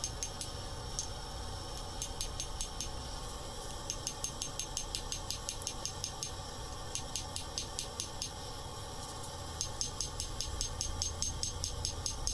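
Hand hammer striking a glowing steel billet on an anvil in quick, light, regular blows, about five a second, a little louder near the end. The billet is a canister of drill-shaving spirals and powdered steel, fluxed and being forge-welded.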